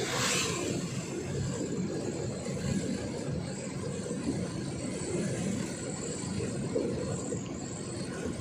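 Truck engine and road noise as a steady low rumble, with a brief rush of hiss right at the start.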